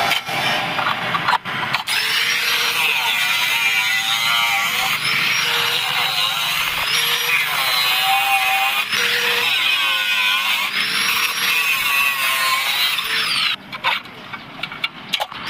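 A power tool cutting metal: a loud, steady grinding hiss whose pitch sags and recovers again and again as the cut loads the tool. It stops abruptly near the end.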